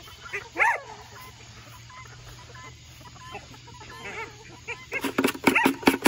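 Black Copper Marans chickens clucking. One drawn-out call rises and falls about half a second in, and a quick run of short clucks comes near the end.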